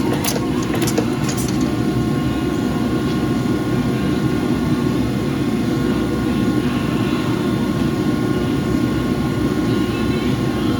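Forging equipment running: a steady low roar with a faint hum of tones above it, with a few sharp clicks in the first second and a half.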